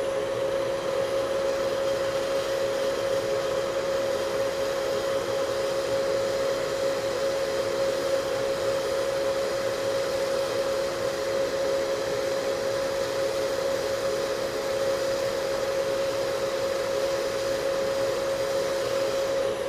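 Hot air rework station blowing at high flow, a steady rush of air with a constant tone, heating an SSD controller chip to desolder it.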